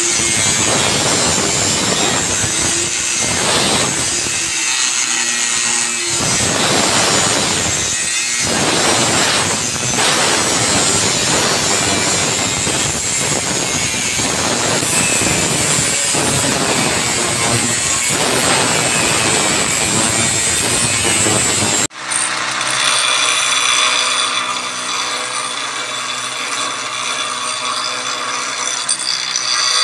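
Handheld angle grinder with an abrasive disc grinding the edge of a leaf-spring steel spear blade, easing off briefly a few times. About two-thirds of the way in, it cuts to a motor-driven grinding wheel on a shaft, running with a steady whine as the steel is held against it.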